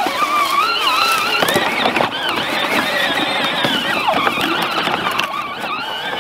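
Battery-powered ride-on toy tractor driving over rough ground. Its electric motor and gearbox whine, the pitch wavering as the load changes, over a crackle of tyres on dry leaves and dirt.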